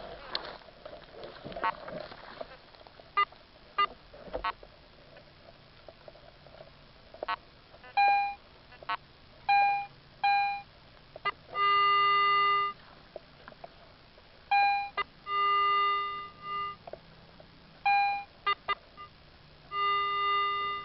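Metal detector beeping over a buried target that can't yet be pinpointed: several short, higher-pitched beeps and longer, lower held tones as the coil is swept back and forth, with a few faint clicks early on.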